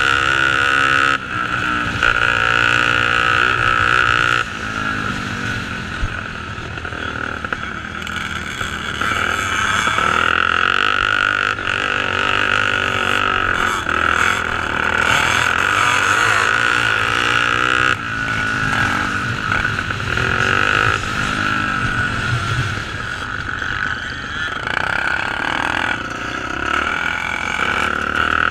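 Racing motorcycles, their engines revving up and down in pitch over and over as the riders work through the throttle.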